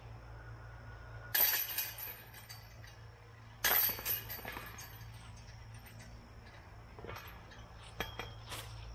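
Discs striking the hanging metal chains of a disc golf basket twice, about two seconds apart, each a loud jangle of chains that rings on briefly. Lighter clinks and clacks follow near the end.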